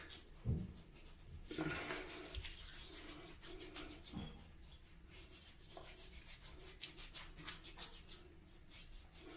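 Hands rubbing Proraso pre-shave into a beard and neck, a faint run of short skin-on-skin rubbing strokes, with a soft low thump about half a second in.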